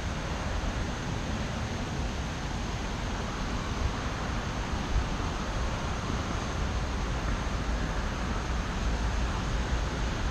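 Typhoon wind blowing steadily, a broad hiss over a heavy low rumble of wind buffeting the microphone.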